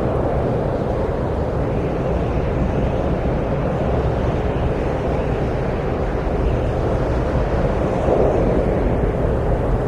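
Steady wind noise, a low, even rushing that swells slightly about eight seconds in.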